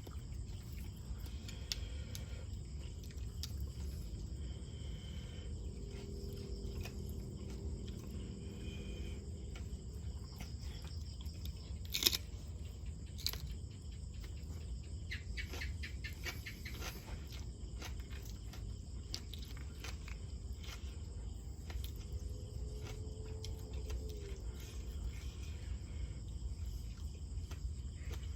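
Outdoor ambience of steadily chirring insects over a low steady rumble, with a sharp click about twelve seconds in and a softer one a second later.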